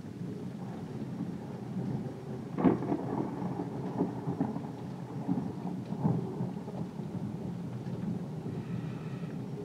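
Thunder rolling and rumbling after a nearby lightning strike, swelling unevenly, with a sharper clap about two and a half seconds in and another swell around six seconds, over steady rain.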